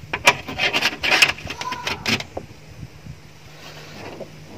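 Steel hinge rod being pushed through the knuckles of metal butt hinges on plywood bed boards: a quick run of metal-on-metal scrapes, clicks and knocks over the first two seconds, then quieter.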